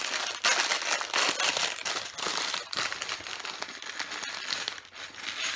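Plastic LEGO parts bag being crinkled and handled, with small bricks rattling inside; it eases off near the end.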